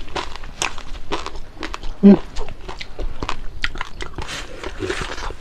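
Close-miked chewing and crunching of crispy fried fish and rice, a rapid string of crunches and wet mouth sounds. About two seconds in comes one short, loud, low grunt from the eater.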